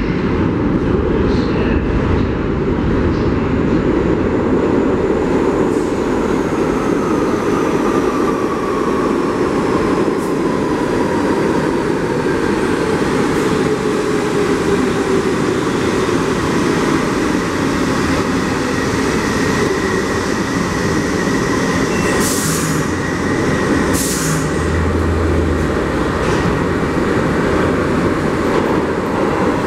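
New York City subway train rumbling through the station on steel rails, a steady loud rolling noise with a whine that slowly falls in pitch as the train slows. A few sharp clanks come a little after twenty seconds, and a thin high tone is held for several seconds.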